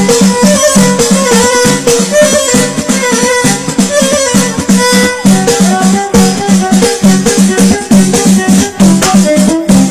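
Loud Moroccan Amazigh chaabi music, an instrumental passage without singing: a drum keeps a steady, driving beat under rattling hand percussion, with a melody line held above it.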